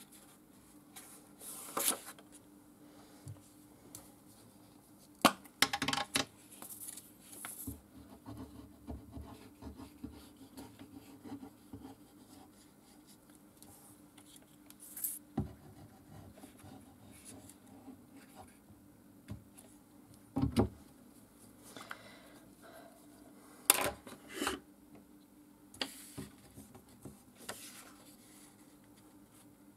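Sheets of white cardstock being handled and folded by hand: paper rustling and hands rubbing along the pleated creases, with several sharper, louder rustles scattered through.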